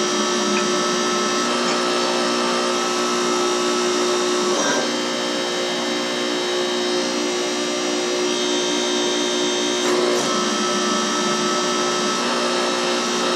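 Hydraulic pump and motor of a homemade forging press running steadily with a whine of several steady tones. The note shifts briefly about a third of the way in and again about three quarters of the way through.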